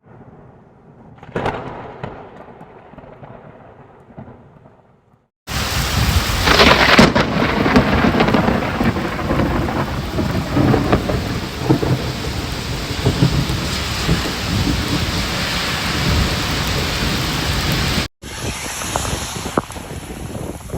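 A thunderclap about a second in that rumbles away over several seconds, then, after an abrupt cut, a heavy downpour of rain with loud noise from wind on the microphone. A second cut near the end brings quieter rain with sharp drips and taps.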